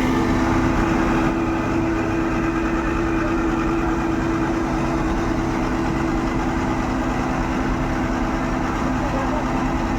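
Heavy diesel machinery engine idling steadily, with a steady whine running over the low engine hum.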